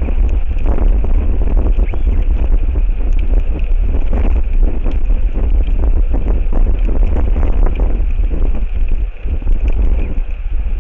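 Strong wind buffeting an outdoor microphone in gusts, a heavy low rumble that eases briefly near the end.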